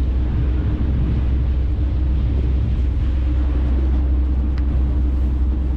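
Tour boat's engines running steadily under way: a constant low rumble with a steady hum above it.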